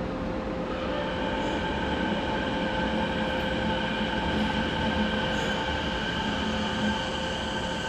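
Kobe Municipal Subway 1000 series train running on the line, with wheel and track rumble under several steady, unchanging high tones from its IGBT-controlled traction equipment, the kind of constant tone this rebuilt series is known for.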